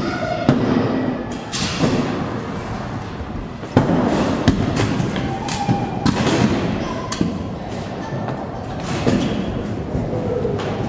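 Kick scooters and skateboards rolling and clattering on a concrete skatepark floor, with a string of sharp thuds and slams as decks and wheels hit the ground. The sound echoes in a large hall.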